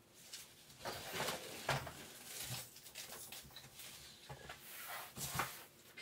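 Scattered soft scuffs and rustles of a large washable rug being shifted across a wood floor, with a few dull thuds.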